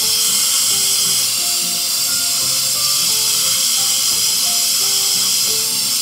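Hair dryer blowing steadily on hair, a loud even hiss that cuts off at the very end. Light background music with a simple melody plays along.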